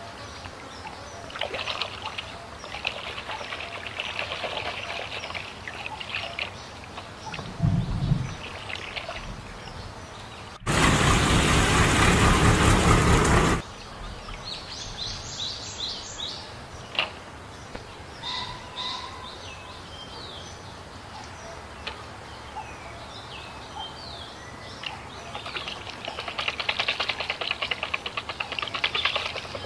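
Water sloshing and splashing in a plastic tub as a toy is washed by hand, with birds chirping in the background. About ten seconds in, a loud steady rushing noise cuts in and stops abruptly after about three seconds.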